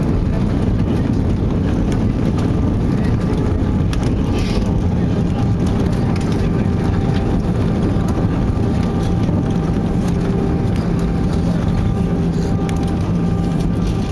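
Cabin noise of an Airbus A320 with CFM56 engines rolling out along the runway just after touchdown, spoilers raised: a loud, steady rumble from the engines and the wheels on the runway. A steady hum grows stronger about nine seconds in.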